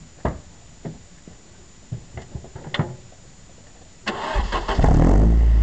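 A few light clicks, then the Opel Astra GSI 16V's engine is cranked by the starter about four seconds in and catches within a second. It settles into a loud, steady run through its de-catted exhaust with a Don Silencioso rear silencer.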